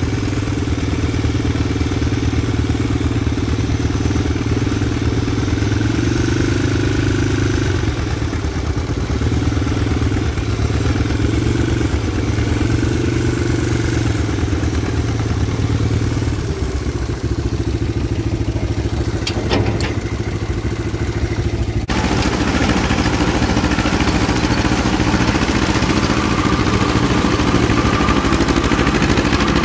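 Engines of a 1953 John Deere 40 tractor pulling a rotary cutter and a Honda 250SX three-wheeler running close by, a steady mixed engine sound. The sound changes suddenly about 22 seconds in.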